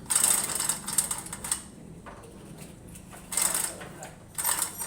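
Metal ratchet mechanism clicking in rattling bursts: a long run of about a second and a half at first, then two short bursts near the end.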